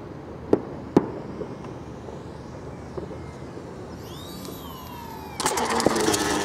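Two sharp clicks about half a second apart near the start, then a thin whine that glides in pitch as the twin electric motors of a My Twin Dream RC plane pass low, and about five seconds in a sudden loud rough scraping as the plane touches down and slides on the pavement.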